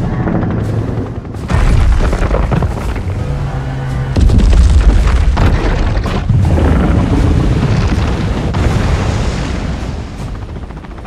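Film sound effect of the pre-evolved Godzilla: a loud, deep booming rumble that swells in heavy surges about a second and a half, four and six seconds in, then slowly fades away.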